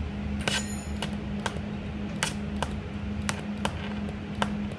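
Steady low electrical or machine hum with a string of sharp, irregular clicks, about two a second.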